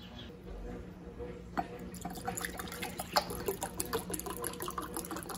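Liquid sounds: many irregular small splashes, drips and pops of water over a steady low hum.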